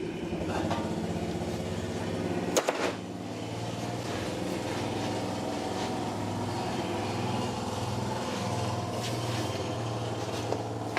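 A steady machine hum, with one sharp metallic clank about two and a half seconds in and a few lighter clicks later on.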